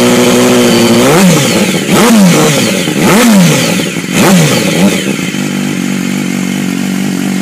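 BMW S1000R inline-four engine held at raised revs for about a second, then blipped four times in quick succession, each rev rising and falling back. It then settles to a steady idle.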